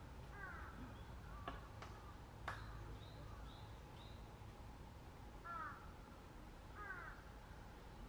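A crow cawing three times: once just after the start, then twice more near the end, each a short harsh falling call. A few short high notes from a small bird come in between.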